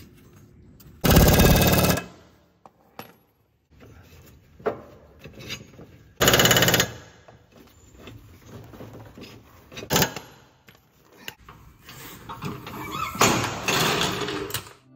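Air impact wrench hammering on the blade bolts of a John Deere zero-turn mower deck, reinstalling the sharpened blades: two bursts, about a second and under a second long, a few seconds apart, then a sharp click and a rougher stretch of noise near the end.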